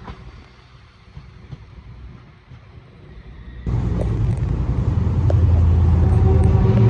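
A low rumble, then about halfway through a sudden jump to a much louder, steady, low engine hum from a train standing or moving at the platform.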